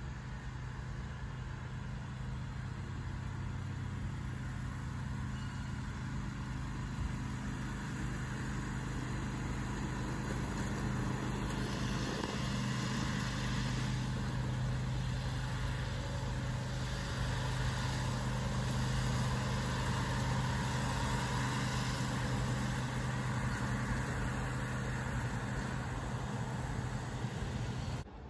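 Steady engine hum of a ride-on miniature-railway diesel-style locomotive passing by. It slowly grows louder, peaks a little past the middle, then cuts off suddenly near the end.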